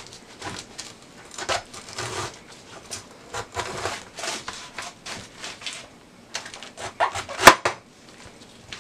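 Knife cutting through a raw head of cabbage on a plastic cutting board: irregular crunching and crackling of the leaves with glove rustle, and one sharp, loud crack about seven and a half seconds in.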